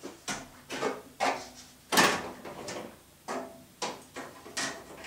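A string of separate wooden knocks and clacks as tools and wooden parts are handled and put away, about nine in all, the loudest about two seconds in.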